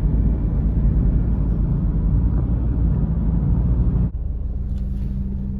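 Car driving along a flooded road: a dense low rumble of engine and tyre or water noise. About four seconds in, the noise drops suddenly to a steadier, quieter engine hum.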